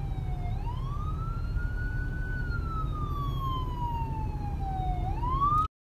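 Ambulance electronic siren on its wail: one slow rise and long fall in pitch, starting to rise again near the end. Then the sound cuts out completely.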